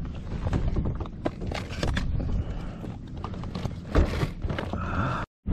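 Irregular knocks and thumps on a plastic fishing kayak over low wind and water rumble, the loudest about four seconds in; the sound cuts off abruptly near the end.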